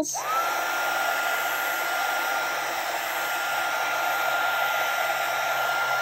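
Wagner HT400 heat gun switched on and blowing steadily: its motor spins up in the first half second to a steady whine over a constant rush of air. It is being passed over freshly poured epoxy resin to pop the surface bubbles.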